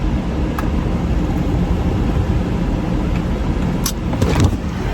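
Car engine idling, a steady low rumble heard inside the cabin, with a few faint clicks.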